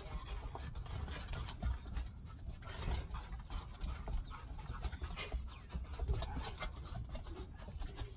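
Two dogs panting as they pull on rope tug toys, with scattered short scuffs and clicks of the tugging.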